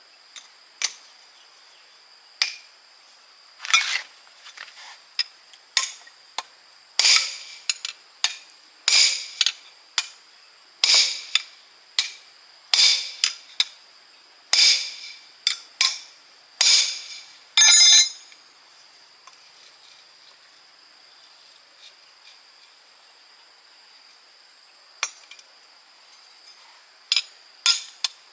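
Hand tools striking and clinking on metal gearbox parts: a string of sharp, ringing metal taps at uneven intervals, then a pause of several seconds and a few more taps near the end. A steady high insect trill runs underneath.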